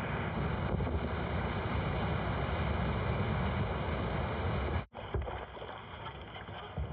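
Whitewater rapids rushing steadily around a kayak. About five seconds in the sound cuts off abruptly for a moment and then returns quieter.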